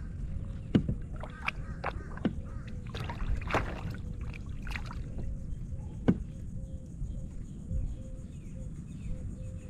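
Sharp knocks and taps on a plastic Hobie Outback kayak hull, about half a dozen spread over the first six seconds, over a low steady rumble of wind and water.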